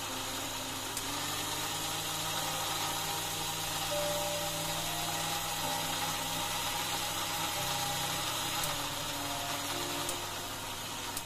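Philips mixer grinder motor running steadily at full speed, blending grated beetroot, carrot, apple, ginger and mint with water in its stainless steel jar.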